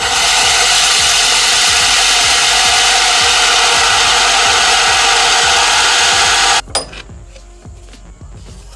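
Power drill spinning a hole saw through MDF board: a steady, loud grinding rasp that cuts off suddenly about six and a half seconds in, followed by a knock and quieter handling of the board.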